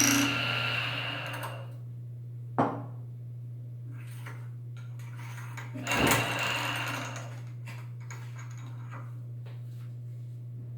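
Homemade bottle-washing machine driven by an old automatic-gate motor. A loud working noise fades out over the first second or so, then the motor keeps up a steady low hum, with a sharp click a few seconds in and a louder knock around the middle.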